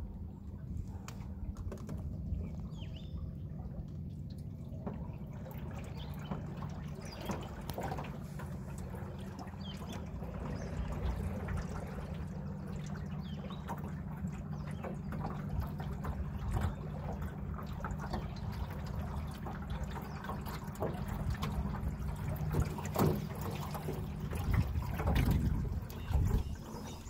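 Lake water lapping and trickling against the side of a small boat, with small splashes and drips over a steady low hum. A few louder bumps come near the end.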